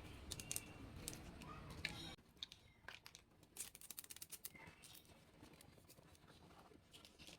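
Faint clicks and light rustling of small toy pieces and packaging being handled. A quick run of sharp ticks comes about three seconds in.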